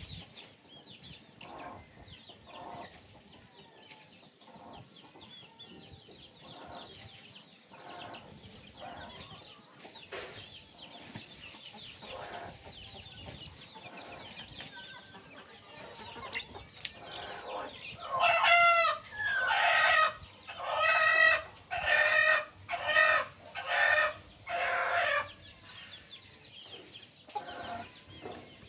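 Chicks peeping and chickens clucking softly. About 18 seconds in, a chicken gives a loud run of about seven repeated calls, one roughly every second, lasting some seven seconds.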